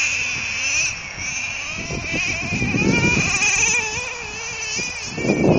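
A nitro (glow-plug) engine on an RC truck running at high revs, a high buzzing note whose pitch wavers up and down as the throttle changes.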